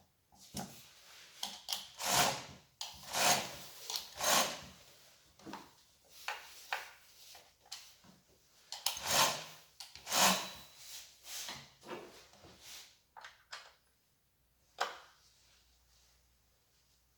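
Handling noise from unpacking: irregular rubbing and scraping strokes with light knocks, and one sharper knock near the end.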